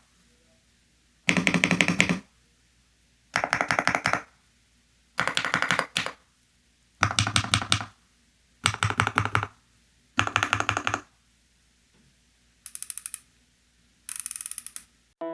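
Yunzii B98 Pro mechanical keyboard with Candy linear switches and a screwless stock build, typed on in quick bursts of rapid key clacks, each about a second long, with short pauses between them; the last two bursts sound thinner and higher.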